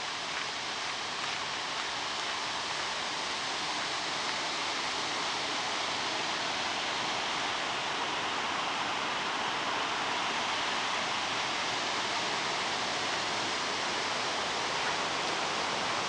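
Steady rush of water from a weir waterfall, a continuous hiss that slowly grows a little louder.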